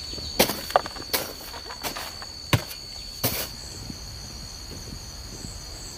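Half a dozen sharp knocks and steps over the first three and a half seconds, from a walker in rubber boots on the dry soil and bamboo bed edge. Under and after them, a steady high chirring of insects.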